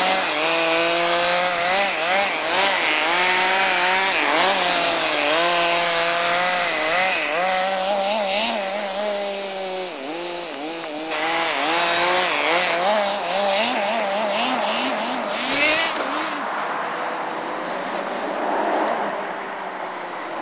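RC truck's motor buzzing as it drives, its pitch rising and falling over and over as it speeds up and slows; the sound gets quieter and less distinct in the last few seconds.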